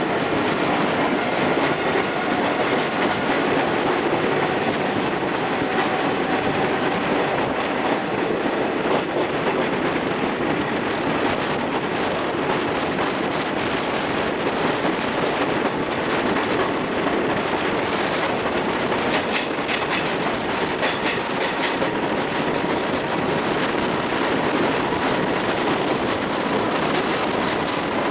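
An express train's passenger coach running at speed, heard from an open door: a steady rumble of wheels on rail with clickety-clack over the rail joints. A faint thin wheel squeal comes and goes as the train rounds the curve.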